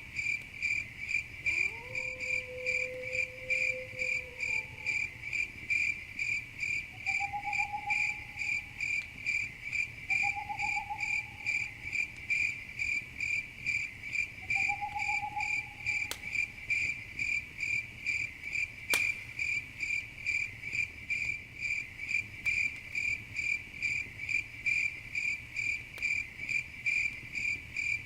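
Crickets chirping steadily in an even rhythm of about two pulses a second. A few short, lower calls come in during the first half. Two sharp campfire crackles come a few seconds apart past the middle.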